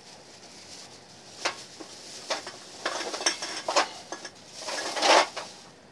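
Thin plastic grocery bag rustling and crinkling as aluminum pop cans are handled in it, with light clinks of the cans. Loudest about five seconds in.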